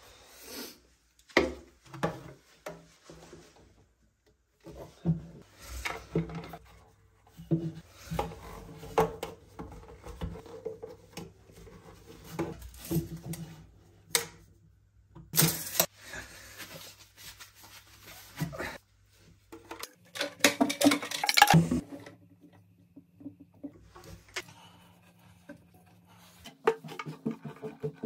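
Hands handling and fitting plastic sink drain pipes and fittings: scattered clicks, knocks and rubbing of plastic, with a louder stretch of scraping about three quarters of the way through.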